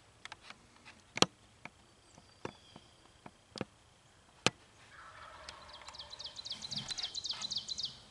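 Wild turkey gobbling: a fast rattling call in the last three seconds that grows louder toward its end. It follows a scatter of sharp single clicks in the first half.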